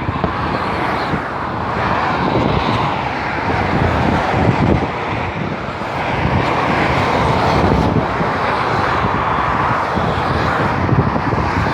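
Steady road and wind rush of a car travelling at motorway speed, with tyre noise and no horn.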